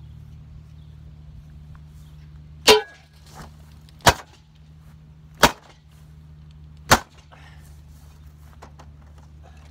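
A metal spade struck hard four times, about a second and a half apart, against an old television set, each blow a sharp whack, the first with a short ring. The set does not break.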